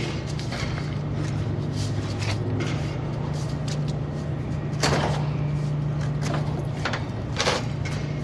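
Sheet-metal evaporative cooler cabinet scraping and knocking as it is tipped over and lowered onto the roof, with two louder scrapes about five seconds and seven and a half seconds in, over a steady low hum.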